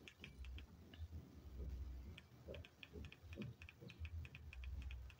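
Remote control buttons clicking faintly, pressed in quick repeated runs of several presses a second to scroll down a decoder's channel list, with a short pause about a second in.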